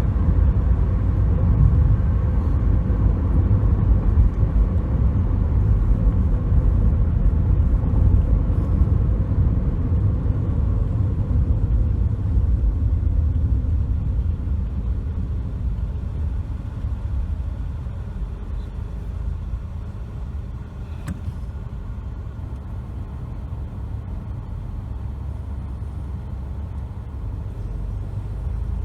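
2007 Toyota Corolla S being driven: a steady low rumble of road and engine noise that eases off about halfway through. No knocking or clunking is heard from the steering, which runs quietly on its replaced steering yoke.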